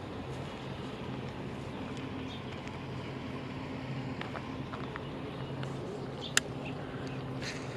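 Low, steady hum of a distant engine, with a single sharp click a little over six seconds in.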